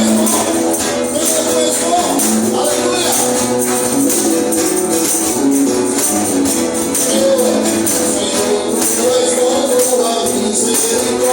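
Church band playing a lively gospel praise song: singing over a steady beat of shaken percussion.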